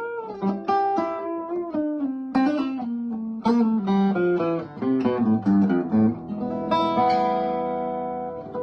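A 1950s/60s TWIST archtop guitar being played: a run of plucked notes stepping down in pitch, then a chord struck about seven seconds in and left ringing.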